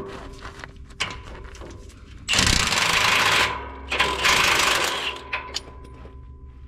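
Impact wrench hammering in two bursts of about a second each, breaking loose the bolts of the steering track bar bracket, with small clicks of tools around them.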